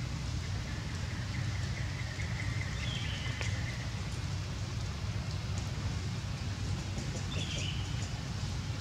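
Steady outdoor background noise, a low rumble under an even hiss, with a faint high thin whistle in the first few seconds and two short bird chirps, about three and seven seconds in.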